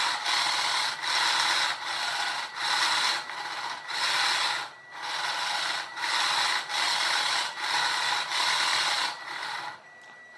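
Small brushed DC motor with a propeller, driven through a 20A brushed ESC without brake, buzzing in short repeated bursts, roughly one a second, as it is flicked between forwards and backwards. It switches straight from one direction to the other with no brake pause, which shows the controller has no brake. The bursts stop near the end.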